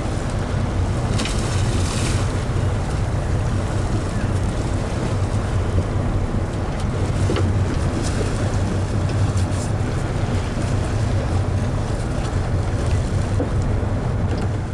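Boat engine running steadily under way, a low even hum, with wind buffeting the microphone and water rushing along the hull. A brief hiss about a second in.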